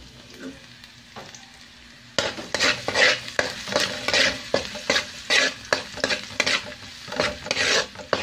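A metal spoon scraping and stirring minced garlic around a wok as it fries. The stirring starts about two seconds in with loud scraping strokes about twice a second, over a light frying sizzle.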